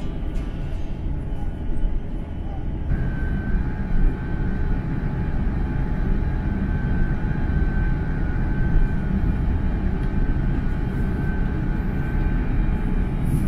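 Airliner cabin noise in an Airbus A350-900 taxiing onto the runway before takeoff: a steady low rumble from its Rolls-Royce Trent XWB engines at low power. A faint steady whine joins in a few seconds in.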